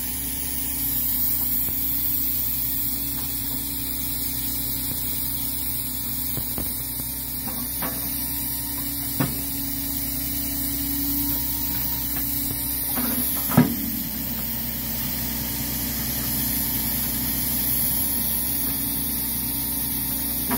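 Grapple truck's engine running steadily with a hydraulic hum as its grapple swings and lowers over the bridge ties. A light knock comes about halfway through, then a sharp knock a few seconds later.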